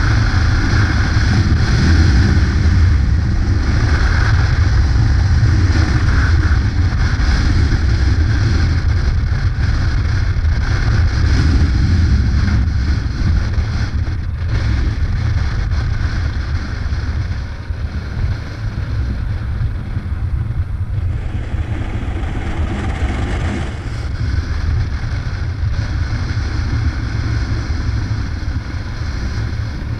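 Yamaha Ténéré adventure motorcycle riding at steady road speed: engine drone with wind rushing over the microphone. The sound eases off a little about halfway through.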